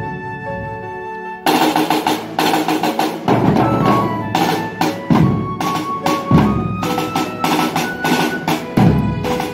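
A group of marching drums played together in a rhythmic pattern, with a melody carried over the drumming. The drums stop for about a second and a half near the start, then come back in with strong hits.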